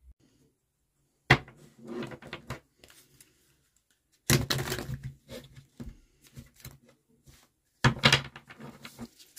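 A deck of oracle cards being shuffled and handled on a table in three short bouts, each opening with a sharp slap, followed by crisp card rustling and small ticks.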